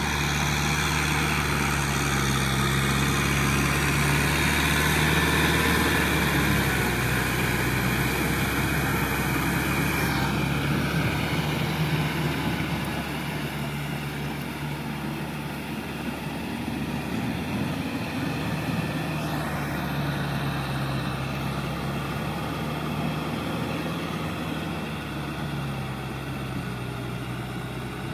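Kubota M6040SU tractor's diesel engine running steadily under load while it drags a rotary tiller through wet paddy mud. The engine note holds a steady pitch, a little quieter after about ten seconds.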